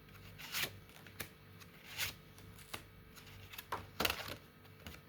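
Tarot cards being shuffled and handled, with a series of short, irregular card flicks and rustles.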